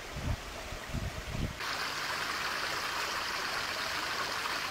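A few low thuds, then from about a second and a half in a shallow stream runs steadily over stones.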